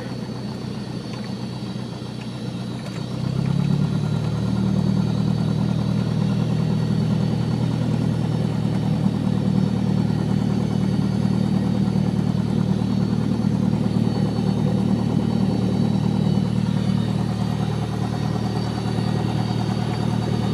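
Light airplane's piston engine running steadily at taxi power, heard from inside the cabin. About three seconds in, its note rises and grows louder, then holds steady as the plane taxis.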